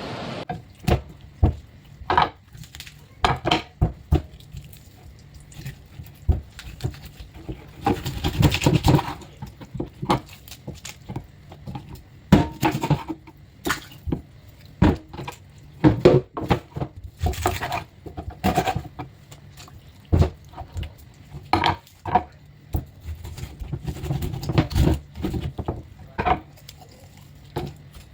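Irregular clatter and knocks of kitchenware being handled: dishes, pots and utensils clinking and setting down, with some sharp knocks.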